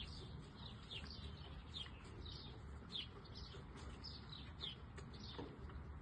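Birds chirping repeatedly, short high falling notes a few times a second, over a faint low rumble.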